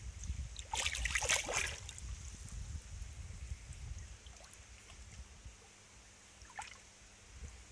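A short burst of water splashing about a second in, and a fainter one near the end, over a low rumble of wind on the microphone.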